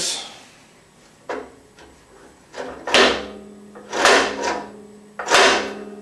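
Metal parts of a Harbor Freight band saw being handled: four short scraping clunks about a second apart, the last three louder, each leaving a ringing hum in the saw's metal frame.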